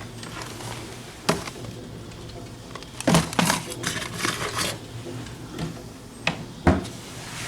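Scattered knocks and clinks of household items being handled, with a busy patch of clatter in the middle and two sharp knocks near the end.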